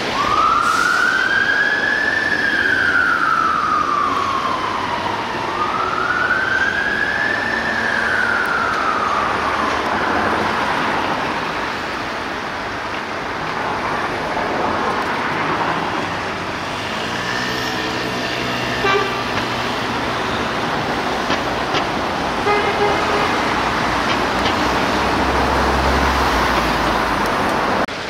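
Fire engine siren sounding a slow wail, rising and falling twice over about ten seconds, then fading into the noise of city traffic with engines running.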